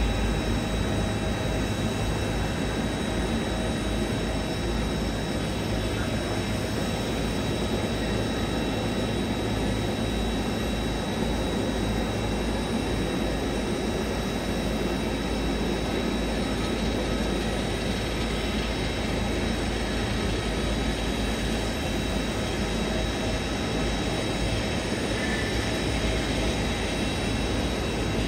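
Steady jet-engine noise from airliners on the apron, with a thin, steady high whine over it, as an Airbus A320-family jet is pushed back from the gate.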